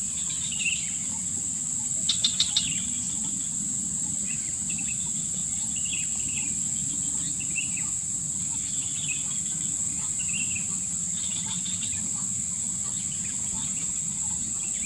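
Steady high-pitched drone of insects in tropical vegetation, with scattered short bird chirps and a quick run of sharp chirps about two seconds in, over a low steady rumble.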